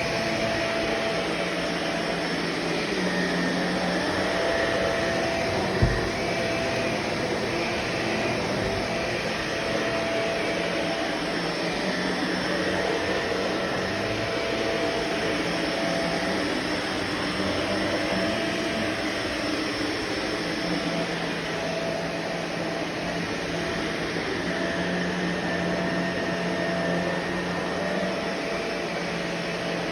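Vacuum cleaner running steadily, its motor and airflow making a continuous noise with a faint steady tone that fades in and out. There is one short knock about six seconds in.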